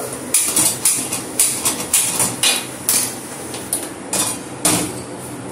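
Hand-held spark gas lighter clicking again and again at the stove burner while the gas is being lit, with sharp irregular clicks about two a second.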